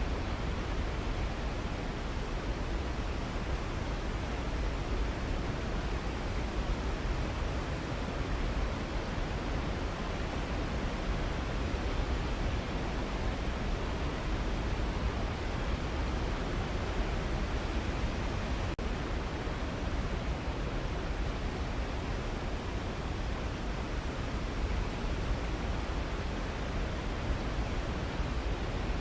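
A waterfall rushing steadily, a full, unbroken roar of falling water.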